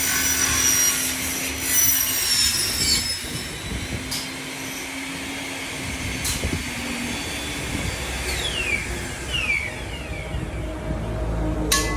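Aluminium-cutting saw with its blade running and cutting aluminium, giving a high-pitched metallic screech over a steady motor hum. Falling whines come about two-thirds of the way through, and a sharp clank comes near the end.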